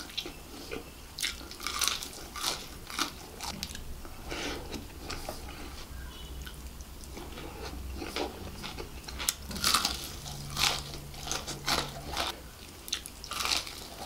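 Close-up eating sounds of crispy fried chicken and chicken biryani rice eaten by hand: bites, crunching of the fried coating and wet chewing, in irregular crackles. The loudest crunches come a little under ten seconds in.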